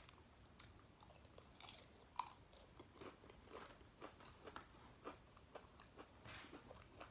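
A person chewing food, with faint irregular crunching bites and mouth clicks.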